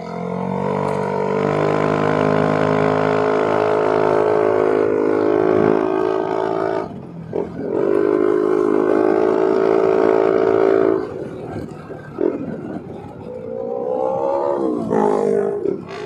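Yamaha NMAX 155 scooter's single-cylinder engine running at a steady pitch while riding. It dips briefly about seven seconds in, eases off around eleven seconds, then rises in pitch near the end.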